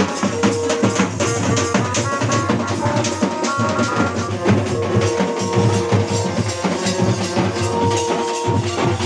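Loud dance music: a fast, dense drum beat with a melody of held notes over it.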